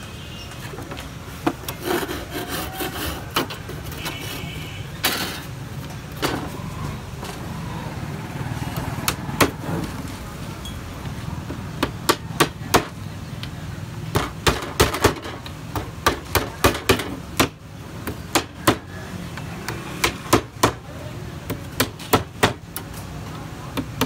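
Small hammer nailing thin softwood boards together: sharp taps on the wood, a few scattered blows at first, then quick runs of several strikes from about halfway through.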